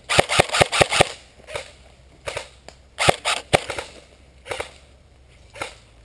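Airsoft guns firing: a quick string of about six sharp shots in the first second, then single shots and pairs scattered through the rest, fainter toward the end.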